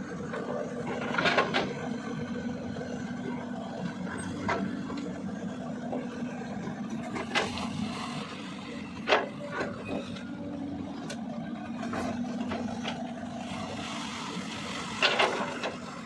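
CAT 320DL long-arm excavator's diesel engine running steadily while it digs mud, with about four sharp knocks, the loudest around nine seconds in.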